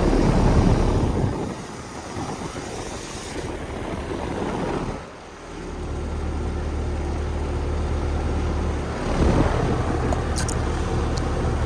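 Outdoor central air conditioner condensing units running: fan and compressor noise, with a steady low hum that settles in about halfway through after a brief dip.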